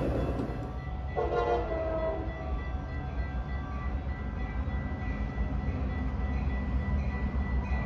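Train rumbling along with a steady low drone. About a second in, a multi-note locomotive air horn sounds one short blast, over a thin steady high whine.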